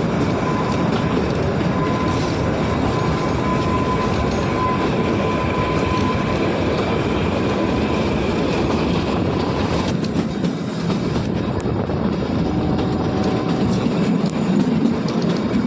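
Kalka–Shimla narrow-gauge toy train running on the rails, a steady loud rumble and rattle of the moving train.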